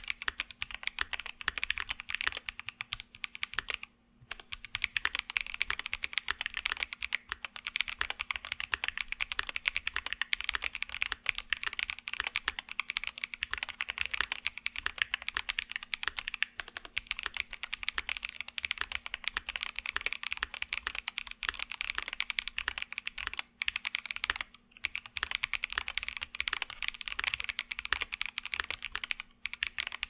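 Steady fast typing on a KBDfans D65 mechanical keyboard with Salmon tactile switches lubed with Carbon GS1, a polycarbonate plate and PBT keycaps. It is a dense stream of keystroke clacks with short breaks about four seconds in and twice near the end.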